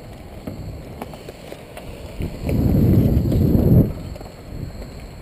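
Skate wheels rolling on a hard outdoor rink surface heard from the skater's own helmet: a low rattling rumble that swells into a loud, dense rumble for about a second and a half past the middle.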